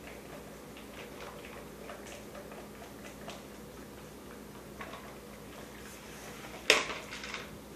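Light scattered clicks and taps of a baby handling a plastic snack cup of puffs on a tile floor, with one sharp knock near the end, much louder than the rest.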